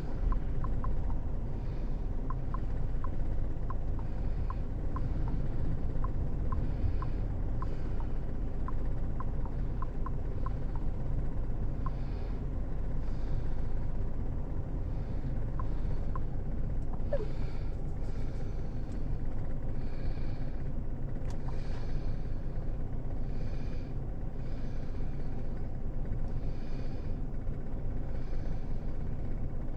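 Hurricane wind rumbling low and steady over the microphone, with gusts swelling and easing. A light, evenly spaced ticking runs through the first half.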